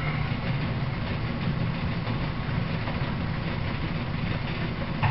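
Belt-driven 114-year-old Gray metal planer running steadily with a low hum, its table traversing under the tool on a light finishing pass that takes only a thin chip.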